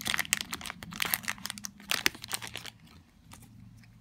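Foil Pokémon booster pack wrapper crinkling and crackling as it is ripped open by hand. The crackle dies away about three quarters of the way through.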